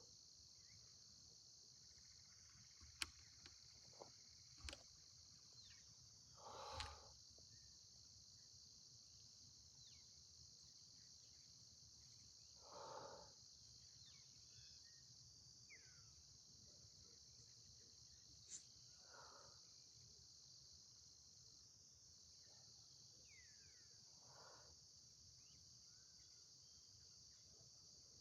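Faint steady high-pitched chirring of crickets, with a few faint bird chirps. Soft forceful breaths out come about every six seconds, the rhythm of cat-cow exhales, with a few small clicks between them.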